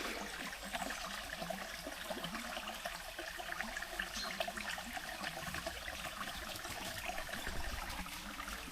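Forest stream trickling and burbling steadily.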